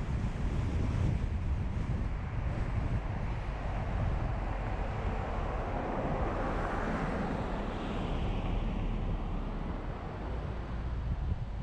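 Steady road and wind noise from a car driving, with a low rumble and wind buffeting the camera's microphone. Around the middle a broad swell of noise rises, then fades, falling in pitch as it goes.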